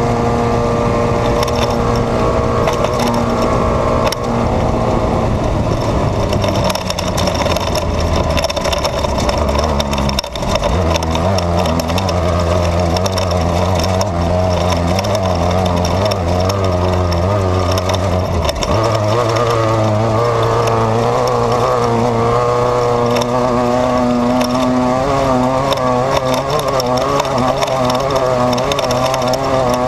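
Desert off-road race car's engine running hard under load, heard from inside the car. The engine's pitch steps down about ten seconds in and back up near nineteen seconds, then wavers as the revs rise and fall over the terrain.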